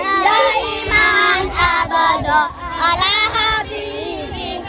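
A group of children singing together, their voices loud and close.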